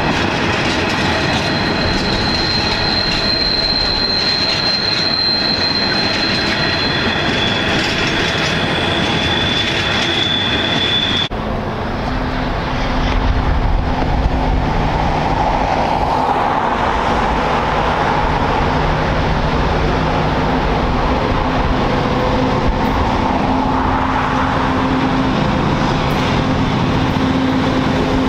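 Coal hopper wagons rolling past with a steady high-pitched wheel squeal over the rumble of the wheels. About eleven seconds in the sound changes abruptly to an 82 Class diesel-electric locomotive coming closer, its diesel engine droning steadily over the rumble of the train.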